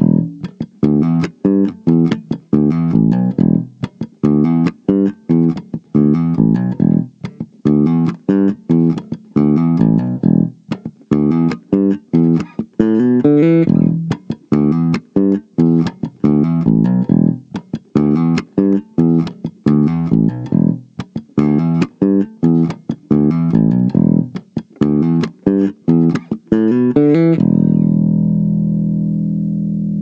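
Ibanez BTB 775 five-string electric bass, played with both pickups on and recorded direct: a busy line of short, sharply plucked notes, ending about 27 seconds in on one held note that rings on and slowly fades.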